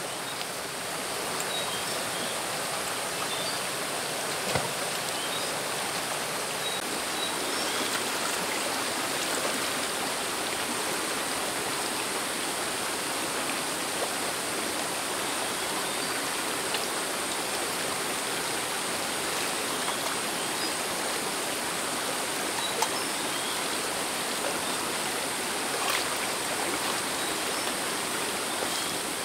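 Shallow rocky stream running steadily over stones, with a few light knocks here and there.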